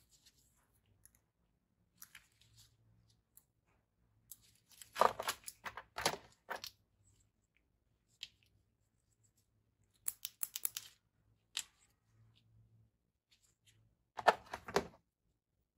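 Handling noise from an electronics starter kit being unpacked: short clusters of rustling and clicking packaging and parts, about five seconds in, again about ten seconds in, and near the end.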